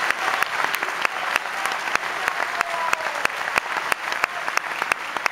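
Audience applauding, a dense crackle of many hands clapping that eases off near the end.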